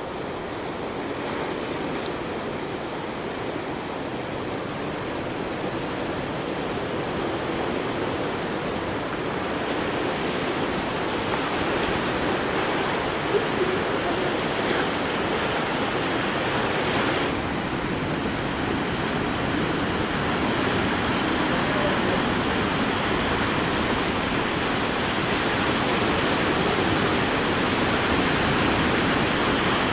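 Big ocean waves breaking and rushing in a continuous wash of surf that grows a little louder toward the end.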